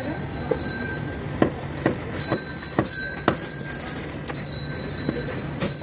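Butcher's large knife chopping beef against a round wooden chopping block: sharp knocks about twice a second, thinning out to a few spaced blows after about three and a half seconds.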